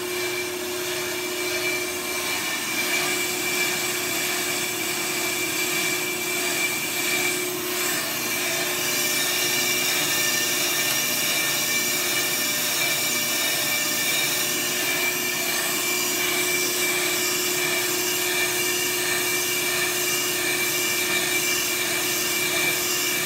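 Brake lathe running and resurfacing a 2013 Hyundai Genesis R-Spec front brake rotor on a fast cutting pass: a steady motor hum under a continuous scraping hiss from the cutting bit, growing a little brighter about eight seconds in.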